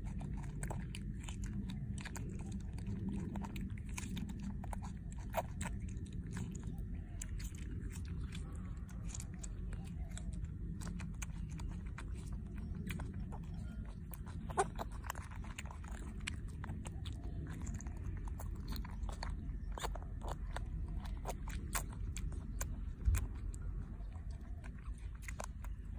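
A young macaque chewing and biting mouthfuls of peeled juicy fruit: a steady run of small wet clicks and smacks over a low steady rumble, with one louder knock a little past the middle and another near the end.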